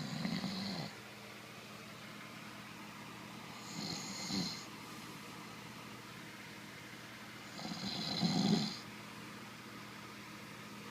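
A man snoring in his sleep: three snores about four seconds apart, each under a second long, the last the loudest.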